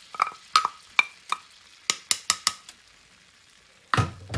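Metal spoon tapping and scraping against a small ceramic plate, a quick run of about a dozen sharp clinks over the first two and a half seconds, shaking the last of the flour off into the pan. Near the end the spoon starts stirring flour into hot melted butter in a non-stick frying pan, a short rough scraping rush.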